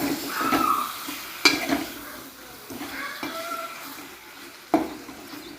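Spoon stirring spices in a cooking pot, scraping against the pot, with two sharp clinks: one about a second and a half in and one near the end.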